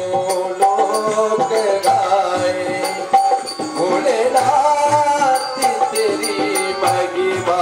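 Hindi devotional bhajan music: harmonium held notes and tabla, with a voice singing and a light, regular tick keeping time.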